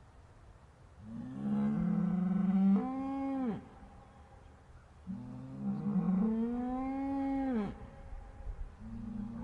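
Cows mooing: two long, low moos of about two and a half seconds each, each ending in a downward slide in pitch, with a third moo starting near the end.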